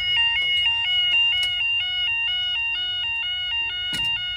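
Level crossing audible warning alarm sounding as the barriers lower, a two-tone electronic alarm switching rapidly back and forth between a higher and a lower pitch. A single sharp knock sounds near the end.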